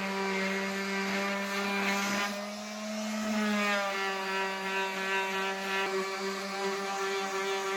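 Handheld electric power tool running steadily with a motor hum, its pitch shifting briefly around three seconds in as the load on it changes.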